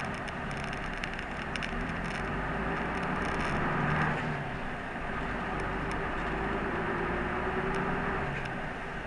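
Interior noise of a route bus under way: a steady drone of engine and road noise, with a faint whine that rises slightly past the middle and scattered light rattles.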